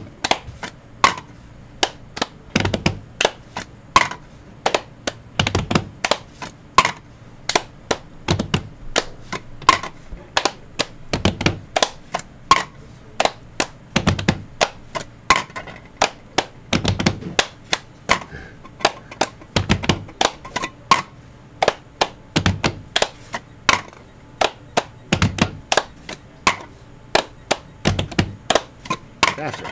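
Hand claps and hand taps on a lab bench in a fast repeating cup-game rhythm, with a heavier thunk about every three seconds as a lab cup is set back down on the bench top.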